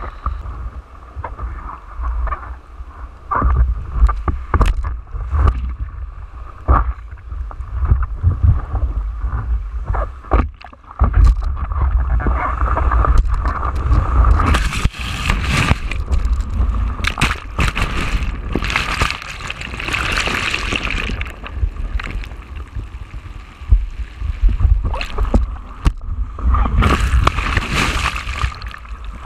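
Ocean waves and whitewater sloshing and splashing against a foam surfboard, heard through a camera mounted on the board's nose, with a constant low rumble and many small knocks. Several loud rushes of breaking whitewater wash over the board, about halfway through and again near the end.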